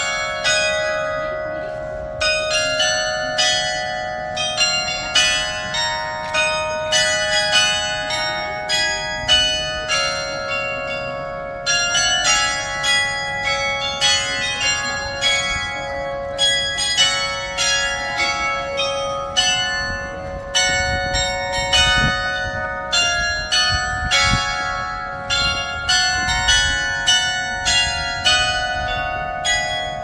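A coin-operated chime of small bells on a pole playing a melody: a steady stream of struck notes, each ringing on under the next.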